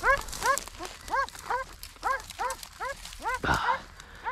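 Hunting dog yelping in quick, high, repeated yips, about three a second, as it gives tongue on a rabbit's scent. A short rustle cuts in about three and a half seconds in.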